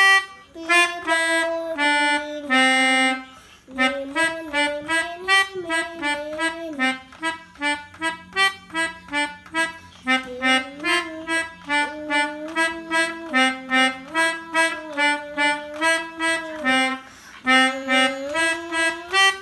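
A pianika (melodica) playing a quick tune of many short, detached notes, with a brief pause about three and a half seconds in. It is a telolet bus-horn tune played on the pianika.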